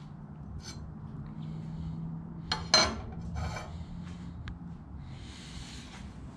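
Handling noises of a square being moved and set on the table saw: scattered light clicks, one sharp clack near the middle, then scraping and rubbing as it is slid into place.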